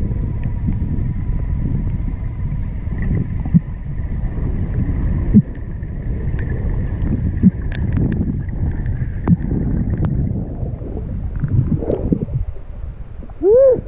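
Muffled low rumble of water moving over an underwater camera housing, with scattered clicks and faint steady tones. Near the end, with the camera at the surface, there is a short, loud squeal that rises and falls in pitch.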